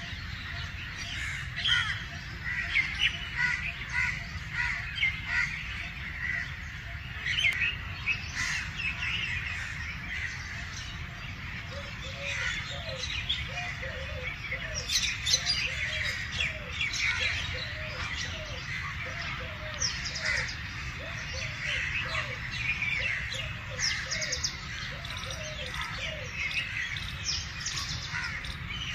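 Eurasian collared dove cooing, a low note repeated about twice a second, from about halfway through. Many other birds chirp and call at higher pitch throughout.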